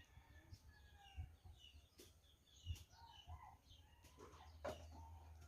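Faint bird chirps, short and scattered, over near silence, with a few light knocks about two seconds in and again near the end.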